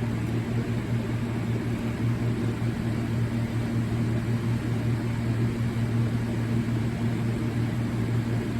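Steady low hum with an even background hiss and no beeping. The carbon monoxide alarm being tested stays silent because its horn does not work.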